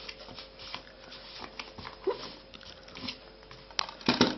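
Plastic Blu-ray case and cardboard slipcover being handled: light rustles and clicks, with a louder cluster of sharp clicks near the end. A short rising whine sounds once, about two seconds in.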